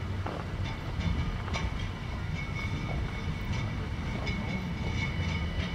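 ÖBB Cityjet Eco battery-electric train running on the line: a steady low rumble with a steady high whine and a few sharp clicks.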